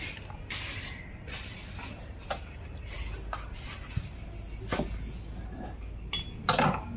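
Soft rustling hiss with scattered light clicks and knocks from handling, and a louder knock near the end.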